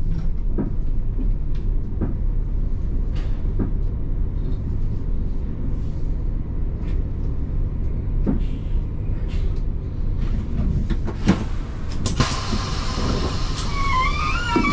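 Coach diesel engine idling, heard as a steady low hum from the driver's cab, with a few light clicks. About twelve seconds in, a loud hiss of compressed air starts and runs on, joined near the end by a wavering high tone.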